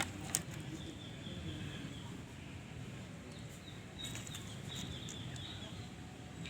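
Small birds chirping in quick high twitters, in two bursts over a steady low background hum, with a single faint click near the start.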